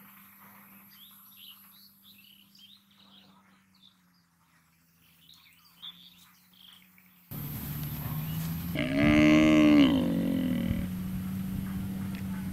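Small birds chirping faintly for the first seven seconds. Then, after an abrupt jump to louder outdoor noise, a cow lows once, a single moo of about two seconds that rises and falls in pitch.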